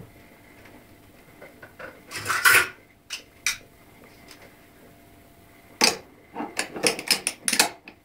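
Glass and metal clinks and knocks from a glass vacuum coffee maker being handled: a scraping rattle about two seconds in, a couple of single clicks, then a quick run of clinks near the end as metal tongs take hold of the glass upper chamber.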